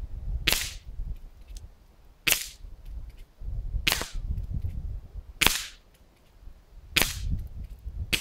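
Five sharp cracks about a second and a half apart: an Air Arms S410 air rifle firing homemade exploding pellets that pop on impact against a terracotta tile.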